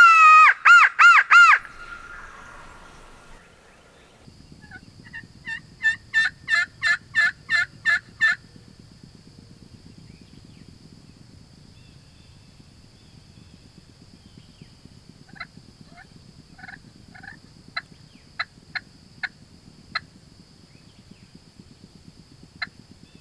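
Wild turkey gobbling loudly right at the start, followed a few seconds later by a run of about nine yelps, roughly two a second. Later come scattered sharp, short clucks, over a faint steady high tone.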